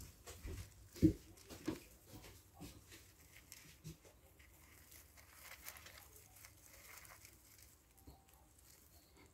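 Wood-shaving bedding rustling and crackling as a young hamster scrambles and burrows through it, with a few soft knocks in the first couple of seconds, the loudest just after one second.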